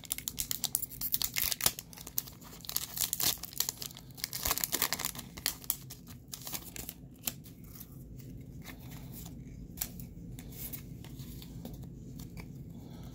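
Foil wrapper of a Pokémon booster pack being torn open and crinkled by hand, then the cards slid out of it. The crackling is dense for the first half and thins to occasional crinkles later on.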